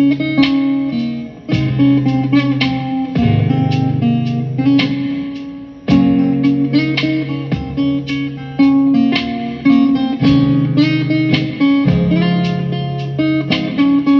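Guitar music: plucked notes and chords over sustained low notes, changing every second or two at an unhurried pace.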